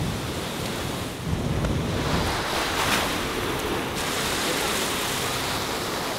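Machine-made wave in a Wavegarden surf pool breaking and rushing, a steady churn of white water, with wind buffeting the microphone.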